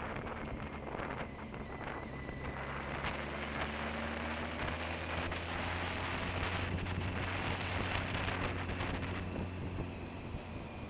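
Motorcycle engine running at a steady pitch while riding, with wind rushing over the microphone. The wind noise grows stronger from about three seconds in and eases again near the end.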